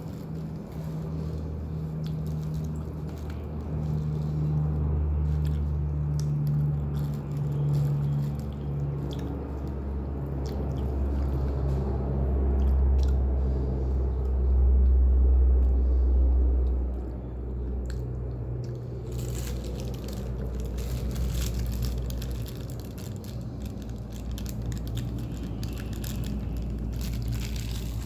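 Close-miked chewing and biting of roti prata, with crisp crackling as the flaky flatbread and its paper wrapper are torn and handled, more of it in the last third. A low steady hum runs underneath.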